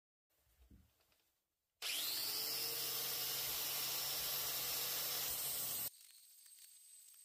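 Angle grinder switched on: its motor spins up with a rising whine, then runs at a steady high speed before cutting off suddenly, leaving a fainter steady high whine. A few faint knocks from handling come before it.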